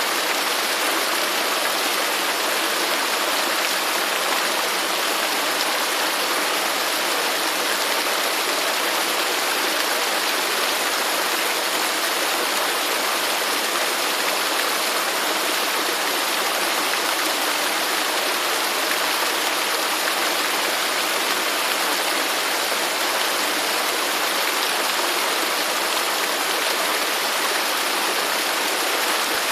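Running water of a natural stream rushing steadily: an even, unbroken hiss with no changes or separate splashes.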